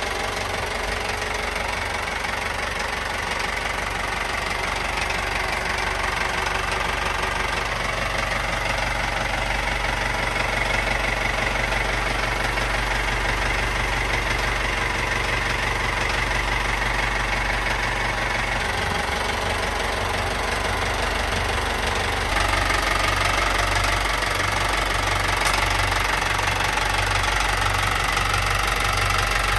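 Yanmar inboard marine diesel engine running steadily, heard close up in its open engine compartment. About 22 seconds in it becomes somewhat louder.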